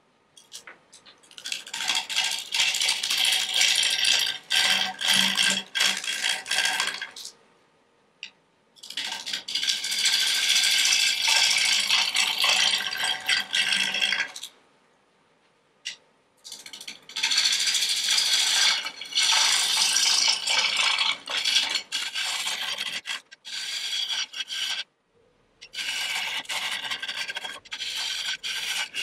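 Bowl gouge cutting a spinning square blank of green maple on a wood lathe: a rough, fast-rattling scrape in several passes of a few seconds each, stopping briefly between them.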